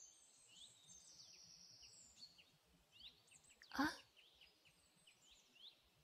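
Faint forest ambience of small birds chirping: short high notes scattered throughout, with a thin steady high note over the first two seconds.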